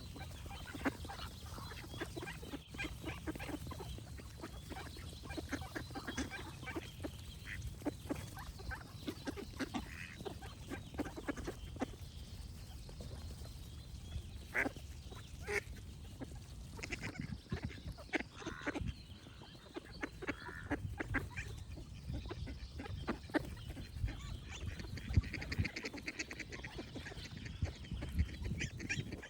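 Ducks quacking, many short calls coming quickly one after another, with some birdsong in the background in the second half.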